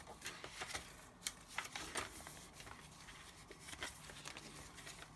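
Faint rustling and small crackles of the tea-dyed paper pages and fold-out pieces of a handmade junk journal being handled and turned.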